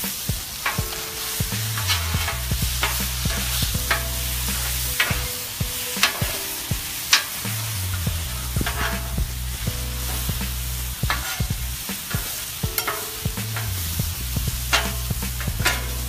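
Pork strips and diced Spam sizzling on a hot Blackstone steel griddle. Metal spatulas stir and chop through the meat, scraping and clicking sharply on the steel at irregular moments.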